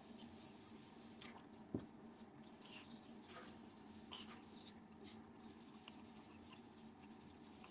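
Faint scratchy brushing of a handheld duster wiping the inside of a bare wooden floor tom shell, with a single sharp tap just under two seconds in.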